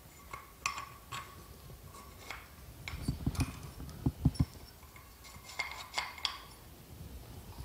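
Light metallic clinks with a short ring as an SU carburettor's alloy suction chamber and body are handled, with a cluster of dull knocks around the middle, the loudest, as the carburettor is moved on the bench.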